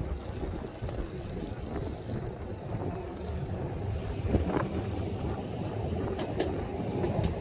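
Heritage double-decker tram running along the track, heard from on board: a steady low rumble of wheels and running gear, with wind buffeting the phone's microphone and a few brief knocks.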